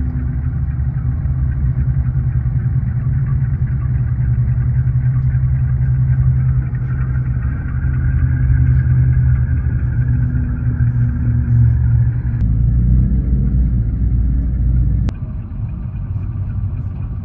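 HO scale model diesel locomotive's sound decoder playing a steady diesel engine rumble. The rumble shifts suddenly about twelve seconds in and drops in level about three seconds later.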